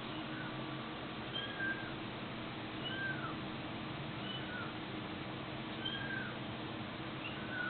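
A kitten mewing: about six short, high-pitched mews spaced roughly a second and a half apart, each rising and falling briefly, over a steady low background hum.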